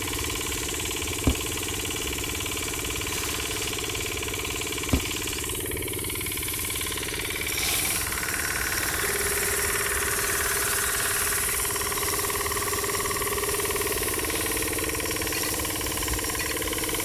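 A small motor or engine running steadily, with a rattling edge, two short sharp clicks in the first five seconds, and a shift in its tone about eight seconds in.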